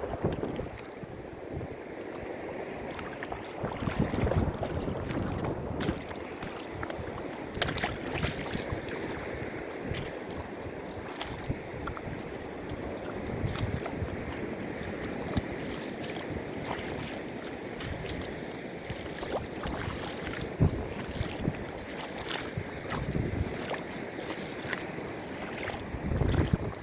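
Sea water sloshing and splashing with many small sharp slaps, under low gusts of wind on the microphone.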